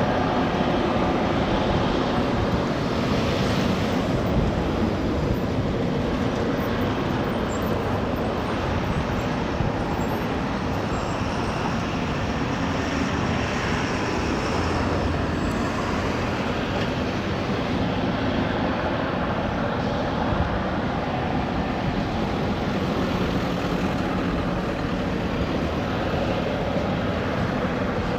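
Diesel-electric freight locomotive engine working under load, a steady heavy exhaust rumble as it pulls a string of loaded grain cars.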